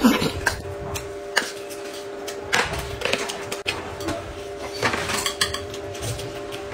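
Scattered knocks and clinks of tableware: a metal tin being handled and set down on the table, and a spoon scraping in a glass, over a steady low hum.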